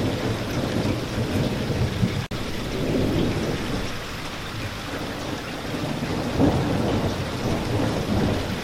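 Steady rain with low rolling thunder rumbling underneath, swelling a few seconds in and again towards the end. The sound drops out for an instant a little over two seconds in.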